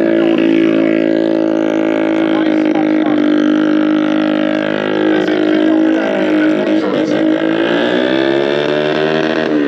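Motorcycle engine held at high, steady revs, its pitch dipping and climbing back a little past halfway.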